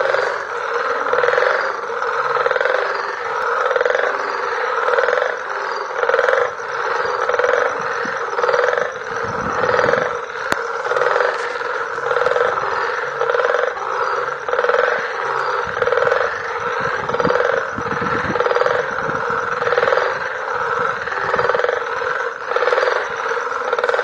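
A dense chorus of many frogs croaking at once, the calls overlapping without a break and swelling about once a second.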